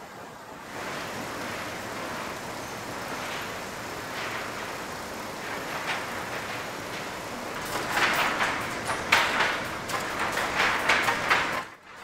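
Sawmill board sorting line running: a steady mechanical rush of chain conveyors, then from about eight seconds in a fast, irregular clatter of sawn wooden boards knocking and dropping through the sorter.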